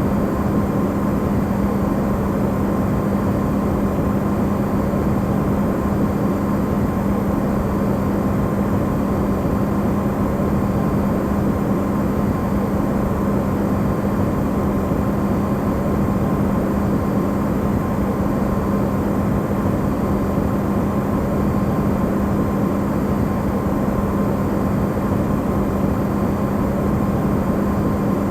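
Refrigerator running, its amplified recording giving a steady, even hum with a strong low drone and a faint higher tone over a wash of noise, used as white noise.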